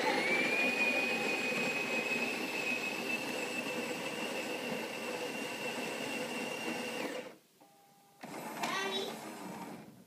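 Built-in coffee grinder of an automatic bean-to-cup coffee machine grinding beans: a steady motor whine that climbs quickly at the start, then holds level. It cuts off about seven seconds in, and quieter sounds follow near the end.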